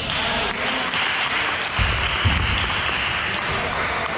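Spectators applauding in a gym, a steady clapping noise, with a couple of low thuds about two seconds in.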